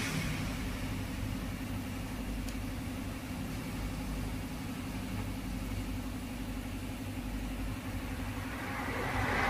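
An engine running steadily: a low, even hum.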